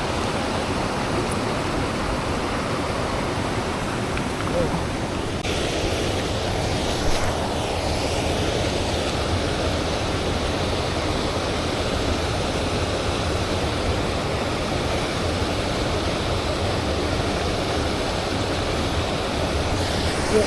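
Steady rushing of river water, an even wash of noise that shifts slightly in tone about five seconds in.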